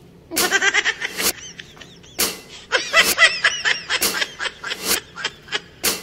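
Laughter in short repeated bursts, starting about half a second in.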